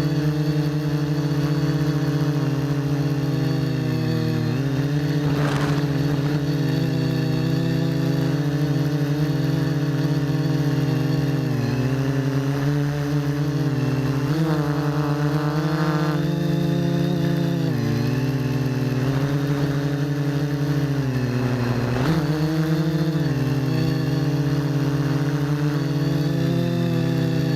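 RC quadcopter's electric motors and propellers buzzing steadily. The pitch dips and rises again several times as the throttle changes.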